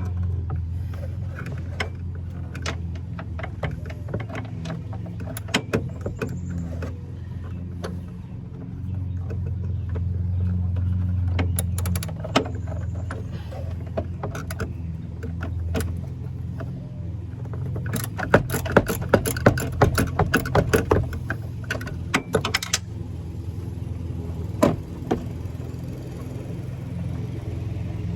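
Metal hand-tool clicks and clinks from work on a Jeep's hood-latch hardware, scattered at first, then a quick run of clicks about 18 seconds in. A steady low hum runs underneath.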